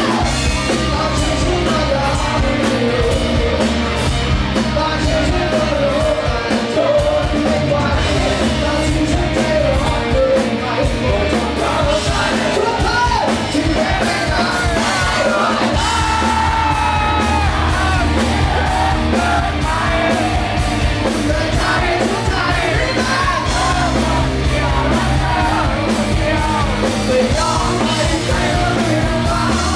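Live rock band playing loud: electric guitars and drums, with a singer's voice that is partly shouted.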